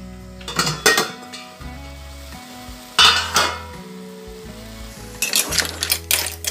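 Aluminium cooking pot being handled: metal clatters from its lid, the loudest about three seconds in, then from about five seconds a metal ladle stirring the mussels, with rapid clinks and scrapes of shells against the pot.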